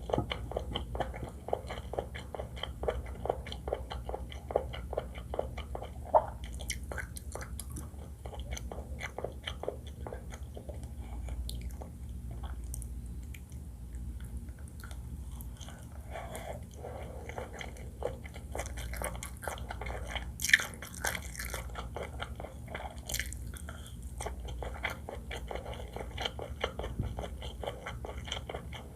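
Close-miked chewing and biting of seafood fried rice with shrimp, crab and squid: a dense run of wet mouth clicks, sparser for a few seconds midway, with a couple of sharper bites.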